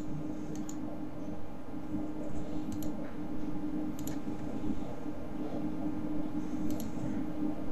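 Sharp computer mouse clicks, a handful spread out and some in quick pairs, over a steady low hum.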